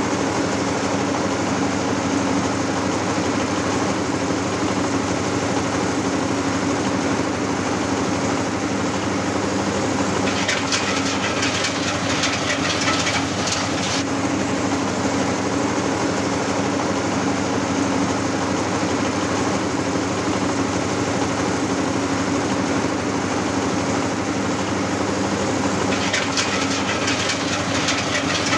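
Areca nut husking machine driven by belt from an 8 hp single-cylinder diesel engine, running with a steady drone. Twice, about a third of the way in and again near the end, a rapid clatter rises over the drone for a few seconds.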